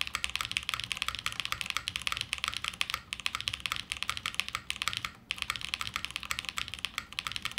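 Fast typing on a top-mount Martingale custom mechanical keyboard with Gateron Summertime linear switches and GMK Foundation keycaps: a dense, even run of keystroke clacks, a little bright, with brief pauses about three and five seconds in.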